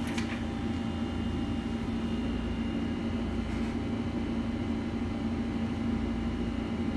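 A steady machine hum of the workshop background, with a low steady tone and a faint higher whine running through it. There is a brief click at the very start.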